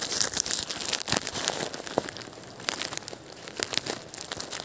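Irregular close crackling and crunching, a string of small sharp noises with no steady rhythm.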